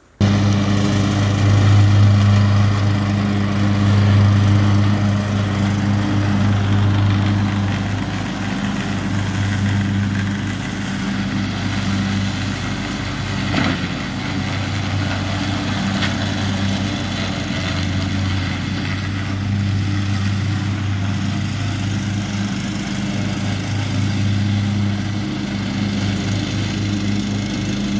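Cub Cadet XT1 riding lawn mower engine running steadily, with a couple of brief knocks around the middle.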